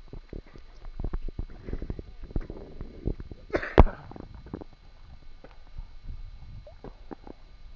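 Small waves lapping and splashing against a camera bobbing at the waterline, heard as irregular knocks and taps with a low rumble. One louder, sharp burst comes about three and a half seconds in.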